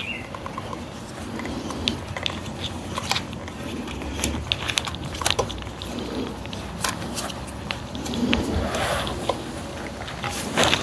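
Scattered light clicks and taps of bolts, a bracket and hand tools being handled on a motorcycle, over a low steady hum.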